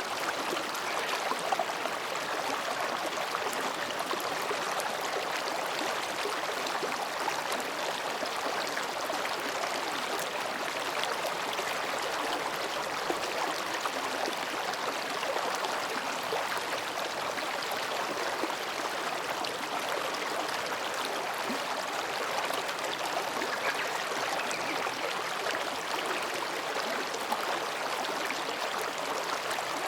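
Mountain stream flowing gently between rocks, a steady, even babble of water.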